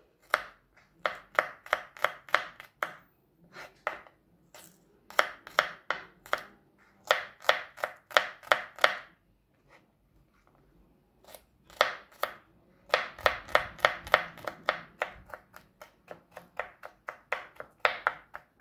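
Knife finely chopping garlic cloves on a cutting board, in quick runs of sharp knocks about four a second, with short pauses between runs.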